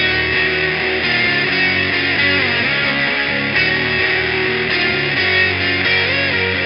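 Electric guitar played through distortion pedals: a heavy, distorted alt-rock chord riff.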